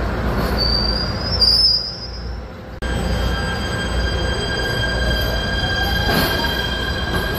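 PATH subway train running alongside the platform, with a steady rumble and a high wheel squeal that rises in pitch. The squeal breaks off suddenly about a third of the way in. After that the running noise carries on with a steady high whine of several held tones.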